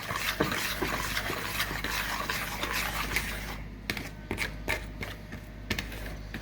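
A whisk scraping and clicking against the bowl as a thick oil-and-spice mix is whisked; about halfway through the strokes thin out to scattered clicks.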